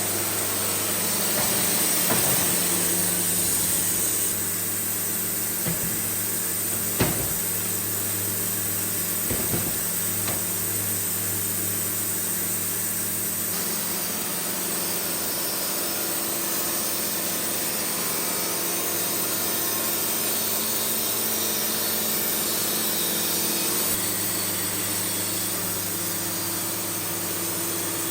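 Wood-Mizer portable band sawmill running steadily as its band blade saws through a cherry log, with a few sharp knocks about seven and nine seconds in.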